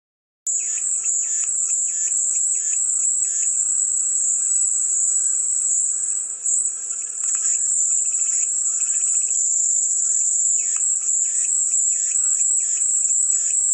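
Cicadas singing: a loud, continuous high-pitched buzz that starts abruptly about half a second in, with shorter pulsing calls repeating lower down.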